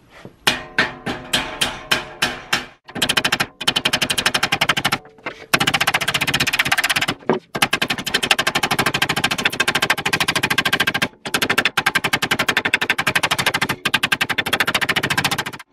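A metal planishing hammer tapping the lip of a sheet-metal sill panel over a forming tool, shrinking the curved edge so the metal gathers into tucks. It starts with a few separate blows, then goes into long runs of fast, even taps with several brief breaks, and the panel rings under the strikes.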